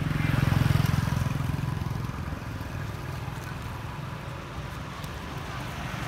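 A motor vehicle's engine running as it passes by, loudest about a second in and then fading to a steady low hum.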